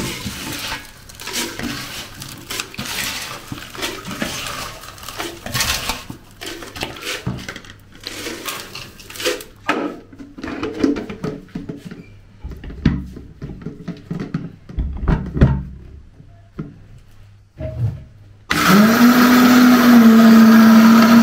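Irregular scraping, tapping and clatter of a plastic spatula and bowls as ground cocoa is stirred and moved. About three-quarters of the way in, a countertop blender's motor starts with a quick rise in pitch and then runs steadily, grinding cocoa into powder.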